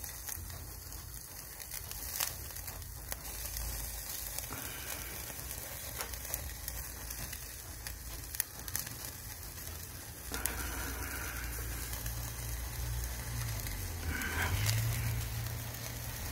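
Iberico pork rib-meat skewers sizzling on a wire grill over a hot charcoal fire, a steady hiss with scattered sharp pops and crackles.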